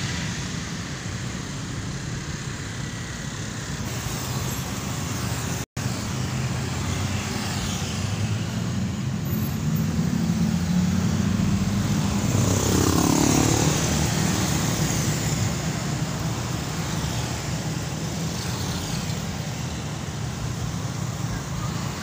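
Steady road traffic of cars, trucks and motorcycles passing. Midway through, a vehicle passes close and swells louder, then fades. The sound cuts out for an instant about six seconds in.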